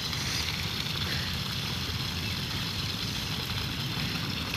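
Water running steadily from a garden hose pipe as a man drinks from its stream, over a steady low rumble.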